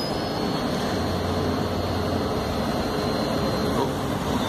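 Articulated city bus drawing up and passing close by, a steady running noise of its drive and tyres with a low hum.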